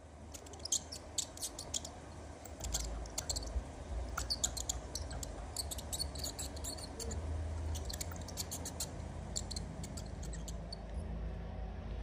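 Mice squeaking: irregular clusters of short, high squeaks and chirps over a low, steady rumble.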